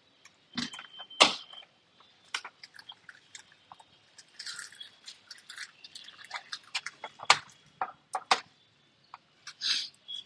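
Irregular clicks, light knocks and short scrapes of a laptop's case and small tools being handled, with the loudest knocks about a second in and again about seven seconds in.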